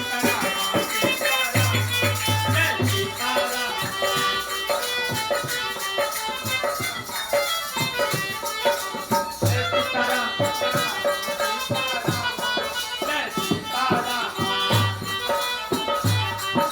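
Kirtan devotional music: dense instrumental sound with shaken hand percussion and low beats recurring every second or so.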